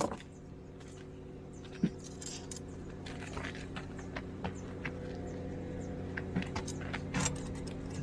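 Light metallic clicks and taps of small hardware (screws, a drill bit) being handled on a steel plate with linear rails, scattered and most frequent in the second half, with one sharper tap about two seconds in. A steady low hum runs underneath.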